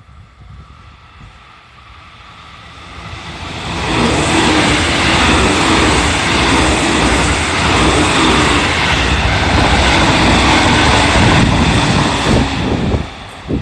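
JR Central 313 series electric train passing close by over a level crossing: the wheel-on-rail rumble builds over the first few seconds, stays loud for about eight seconds, then falls away near the end.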